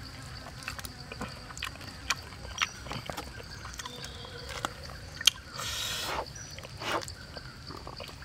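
Grilled whole chicken being torn apart by hand: scattered sharp crackles and snaps of crisp charred skin and meat, with a brief rustling tear about six seconds in. A faint steady insect hum underneath.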